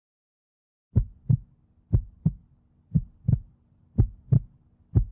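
Heartbeat sound effect: paired deep thumps, lub-dub, about once a second, starting about a second in over a faint low drone.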